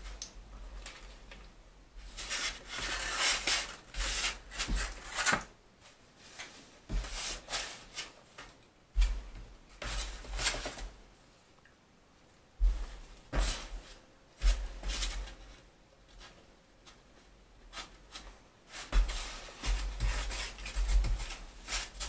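Close-up eating noises from someone eating a kebab: irregular bursts of rustling and chewing noise, a second or less each, with short quiet gaps, and dull low thumps here and there.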